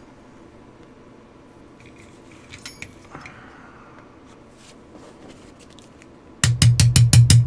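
A few faint clicks of small parts being handled in a quiet room. Near the end, a loud fast, even beat over a steady low hum cuts in suddenly: music.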